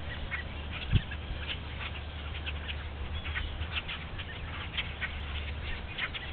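A white-tailed deer walking and grazing in dry crop stubble: light, irregular crackles and rustles over a steady low hum, with one sharp thump about a second in.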